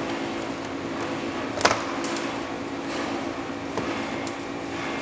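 Steady background hum with one sharp click about one and a half seconds in, as a plastic door-trim piece is slipped into place on the door panel.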